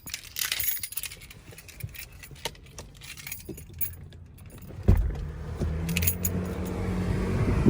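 Car keys jangling and clinking in the hand just after the engine is switched off. About five seconds in comes a sudden low thump, then a steady low rumble of strong wind on the microphone.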